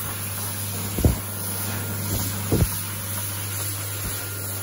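Dyson Airblade V hand dryer blowing with hands under it: a steady rush of air over a low hum. Two brief low thuds come about one second and two and a half seconds in.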